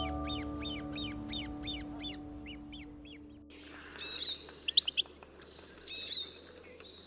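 Music with a fast run of repeated bird calls, about three a second, fading out over the first three seconds. The music then stops, and birds chirp and trill, with a few sharp, loud whistled calls about five seconds in.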